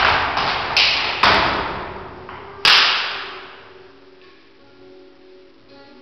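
Flamenco dancer's foot stamps (zapateado): four loud, sharp stamps within the first three seconds, each ringing out briefly, the last the loudest.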